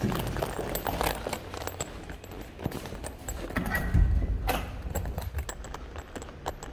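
Footsteps going down concrete stairs, then a round metal door knob rattles and a door thumps open about four seconds in, followed by footsteps on a smooth floor.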